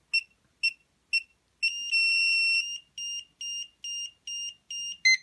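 Electronic bind-mode beeping from the Hubsan H122D Storm transmitter, FPV monitor and quad: short high beeps about two a second, a longer held tone about two seconds in, then longer beeps at the same pace. It ends in a quick falling three-note chirp as the quad binds.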